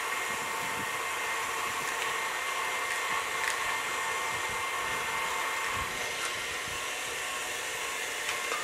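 KitchenAid Artisan stand mixer running steadily, its motor giving a steady whine as the beater mixes oil and sugars in a glass bowl, with a few faint clicks.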